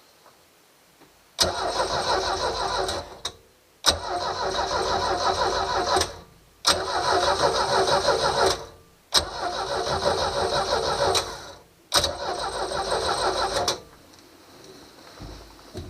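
MerCruiser 3.0 L four-cylinder boat engine being cranked by its starter in five short bursts of about two seconds each, with pauses between them. Each burst stops and the engine does not keep running.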